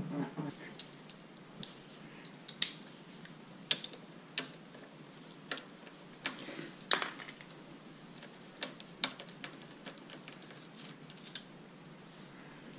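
Scattered light clicks and taps of small parts being handled while the car's front end is taken apart: screws and plastic trim pieces. About a dozen sharp ticks come at uneven gaps, the loudest about two and a half seconds in.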